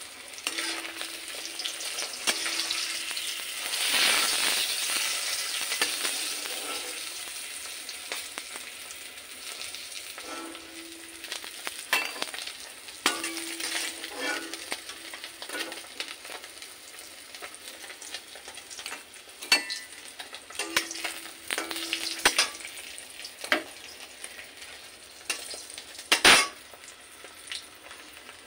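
Turmeric-coated fish pieces sizzling as they shallow-fry in hot oil in an iron kadai, the sizzle swelling a few seconds in. A metal spatula clicks and knocks against the pan now and then, sharpest near the end.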